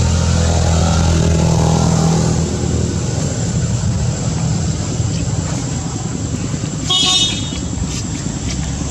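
A motorcycle engine running close by, a steady low hum for the first couple of seconds that turns to a rougher rumble, with a short high toot about seven seconds in.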